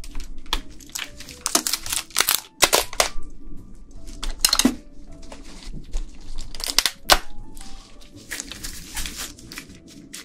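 Steamed red snow crab being broken apart by hand: repeated sharp cracks, snaps and crunching of shell as legs are snapped off and the body is pulled open.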